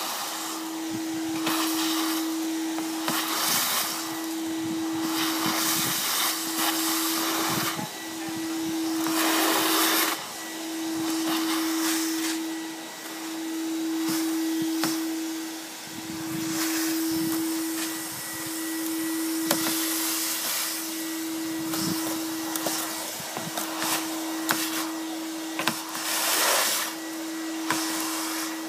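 Vacuum cleaner running through a Guttervac pole and bend, sucking moss and pine-needle debris out of a roof gutter: a steady motor hum that dips briefly every couple of seconds, over a loud rush of air with irregular surges and crackles.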